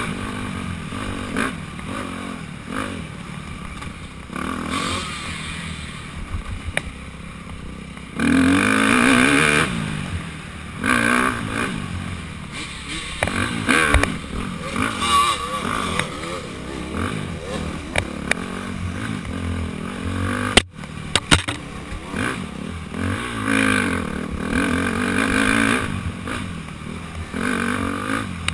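Dirt bike engine on a trail ride, revving up and easing off again and again as the rider works the throttle, with occasional sharp knocks. The sound drops out for an instant about two-thirds of the way through.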